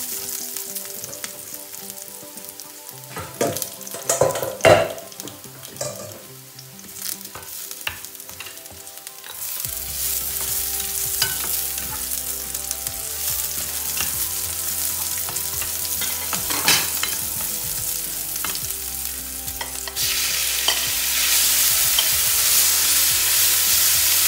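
Garlic and onion frying in oil in a stainless steel skillet, with a slotted spatula scraping and tapping the pan. The sizzle grows louder about ten seconds in, and louder again near the end as thin-sliced raw pork goes into the hot oil.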